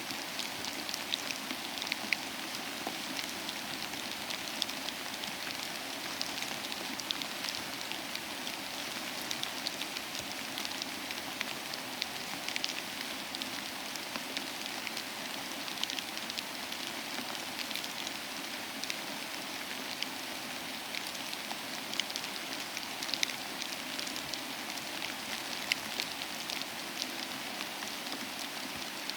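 Steady rain falling, with many individual drops ticking sharply through the constant patter.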